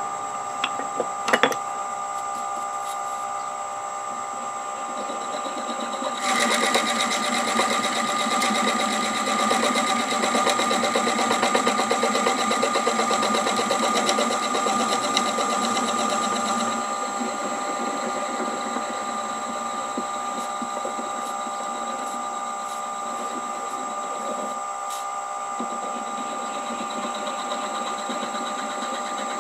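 Nova wood lathe running steadily with a steady motor whine, with a few sharp clicks about a second in. From about six seconds to about seventeen seconds, a 27/64-inch drill bit held in the tailstock chuck bores into the spinning blank, adding a louder, rougher cutting noise, before the lathe runs on alone.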